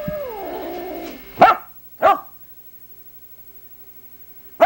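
Puppy barking: two short, sharp yaps about a second and a half and two seconds in, and another at the very end, after a drawn-out falling whine at the start.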